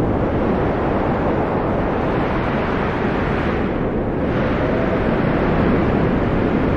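Blizzard wind sound effect: a steady, loud rush of cold howling wind that swells and eases in gusts, its hiss brightening about two to three seconds in, dipping around four seconds, then rising again.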